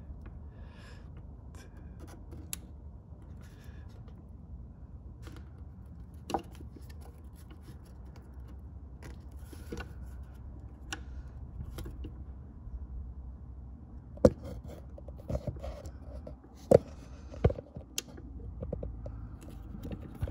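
Pliers squeezing a toothed hose clamp shut on a rubber VTS boot: scattered small clicks and scrapes over a faint low rumble, with a few sharper clicks in the last third as the clamp closes partway.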